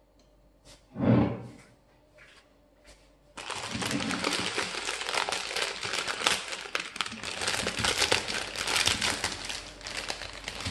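A dull knock about a second in, with a few light clicks. Then, from about three seconds in, the continuous crinkling and rustling of a plastic instant-noodle packet being pulled open and handled around the dried noodle block inside.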